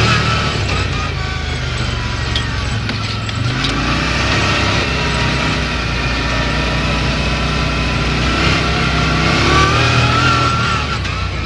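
Off-road buggy's engine running as it drives at speed over a dirt track, its note rising and falling slightly, with a steady rush of noise over it.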